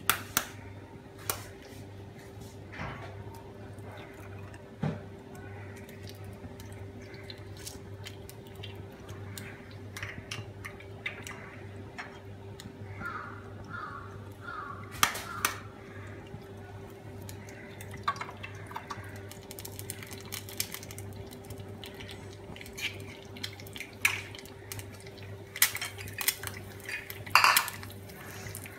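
Eggs being cracked and dropped into an oiled frying pan: scattered sharp knocks of shells against the counter, clinks of plates and the pan, over a steady low electrical hum.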